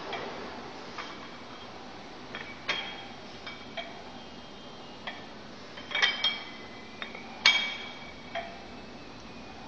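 Iron gym weights clinking: a scatter of sharp metallic clinks with short ringing, about a dozen in all, the loudest around six and seven and a half seconds in.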